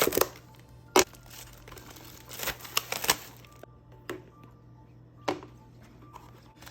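Plastic and foil packaging of trading-card booster packs crinkling and tearing in a handful of short, sharp bursts as a box and pack are opened.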